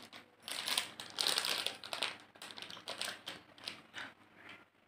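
Clear plastic packaging crinkling and rustling in short, irregular bursts as it is handled, thinning out toward the end.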